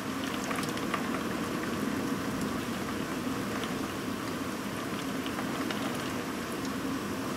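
Heavy rain falling steadily, a dense even hiss with many individual drops ticking close by.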